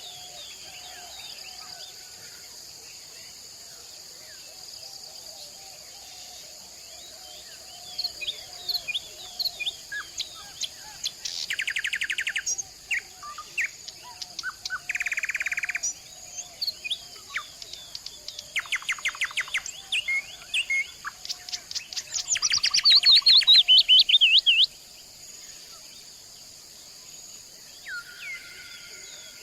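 Several wild songbirds singing and calling, with loud bursts of fast trilled, rapidly repeated notes in the middle stretch. Under them runs a steady high-pitched drone.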